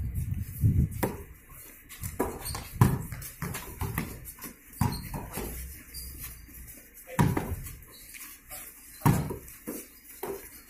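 Basketball bouncing on a concrete court: a handful of hard thumps at uneven intervals, with players' footsteps and shuffling between them.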